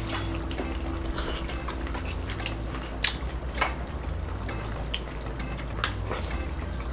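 Eating at the table: noodles slurped and chewed, with scattered light clicks of chopsticks and utensils over a steady low hum. Near the end, a sip through a straw from a drink pouch.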